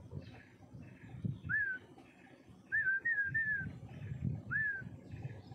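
Short clear whistled notes, each rising then falling: one, then a quick run of three, then one more. They sit over a faint, evenly repeating chirring and an uneven low rumble.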